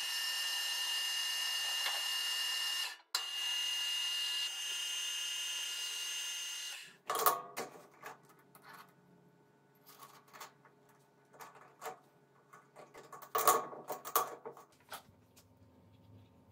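Metal lathe running steadily with a high whine for about seven seconds, broken by a brief dropout near three seconds. After it stops come scattered clicks and scraping from metal parts being handled at the chuck.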